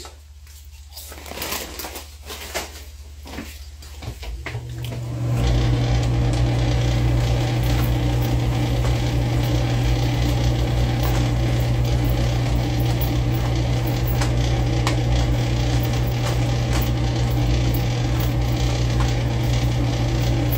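Crunching of potato chips and crinkling of their foil bag for the first few seconds. Then, about five seconds in, a loud steady electric hum from a kitchen appliance switches on abruptly and runs on unchanged.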